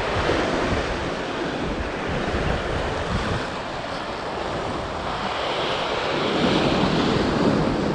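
Ocean swell surging and washing over a rocky shoreline, with wind rumbling on the microphone. The wash swells once near the start and again, more strongly, from about five seconds in.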